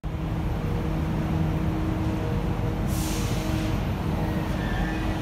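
Interior of an Alstom NS-16 rubber-tyred metro car: a steady hum from the train's equipment, with a short hiss of released air about three seconds in.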